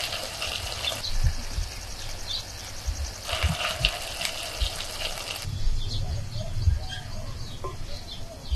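Potato and drumstick leaves sizzling in a clay pot as spices are spooned in, the hiss coming in two stretches, the second from about three to five seconds in, with soft low knocks throughout.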